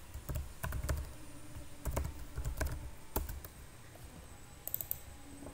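Computer keyboard typing: a run of separate keystrokes for about the first three and a half seconds, then a few scattered clicks.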